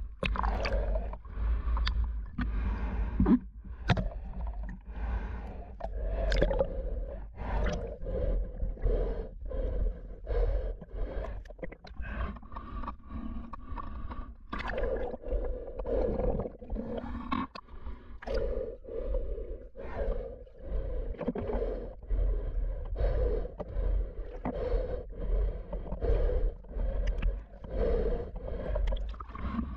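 Muffled water sloshing and splashing around a camera moving in and out of the water surface, with a repeating swish about every second and a half as the swimmer strokes along.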